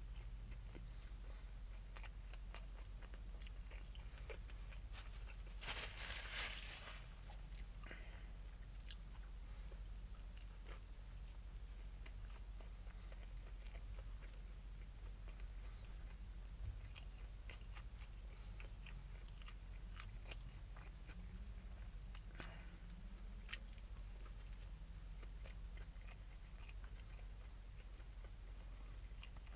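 Close-miked eating sounds of a person chewing and biting a crispy Popeyes spicy chicken sandwich, with scattered crunches and mouth clicks. A louder, longer burst of noise comes about six seconds in, over a low steady hum.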